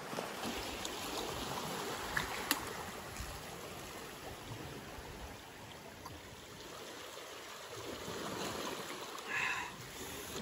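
Small waves washing steadily over a rocky shoreline, with a couple of sharp clicks a little after two seconds in.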